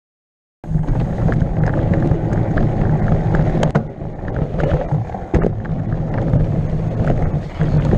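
Mountain bike riding fast down a dirt trail, heard from an on-bike action camera: a steady rumble of tyres on dirt and wind on the microphone, with sharp knocks and rattles from the bike over bumps. It cuts in suddenly about half a second in.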